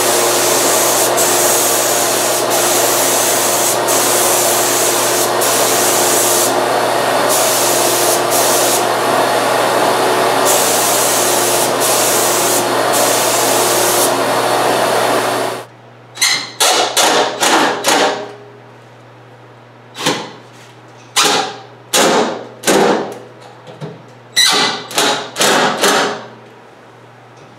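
A hose-fed spray gun hisses steadily as finish is sprayed onto the wood, the hiss changing over and over as the trigger is worked. About 15 seconds in it stops abruptly, and a run of separate clunks and knocks follows as the DeWalt benchtop planer is set onto the cart and fastened down.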